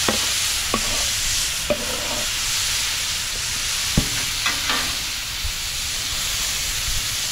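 Chicken strips, bell peppers and onions sizzling steadily on the hot steel cooktop of a Blackstone 28-inch propane griddle. A metal spatula clacks and scrapes several times as the food is moved and stirred, the sharpest clack about four seconds in.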